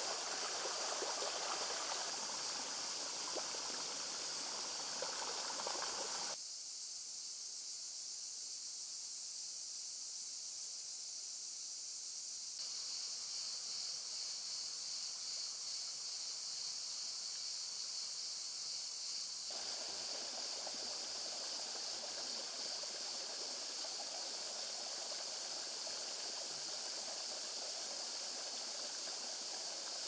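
Shallow stream running over rocks, a steady rush of water, under a constant high buzz of summer insects. The water drops out about six seconds in, leaving only the insect buzz, and comes back some thirteen seconds later.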